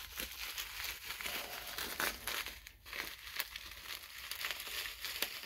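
Plastic bubble wrap crinkling and rustling with many small crackles as it is unwrapped by hand to free a small coin.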